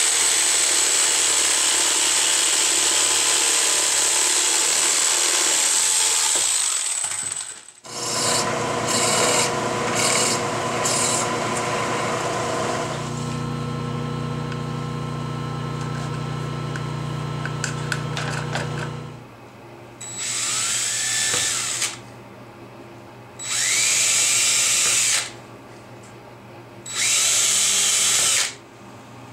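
A small handheld power tool cutting into a PVC pipe, running steadily with a high-pitched whine, stops about seven seconds in; a lower mechanical running sound follows for about ten seconds. Near the end, a cordless drill drills into the PVC pipe in three short bursts, each rising in pitch as it speeds up.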